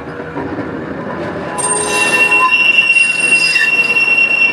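Electric museum tram running on its rails, its steel wheels squealing. A steady high squeal sets in about a second and a half in and holds over the running noise.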